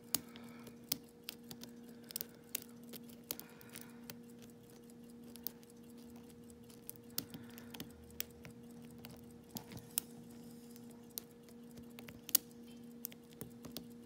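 Lock pick scratching and clicking against the pins inside a lock cylinder held under tension with a tension wrench: small, irregular ticks, with one sharper click about twelve seconds in. A faint steady hum underneath.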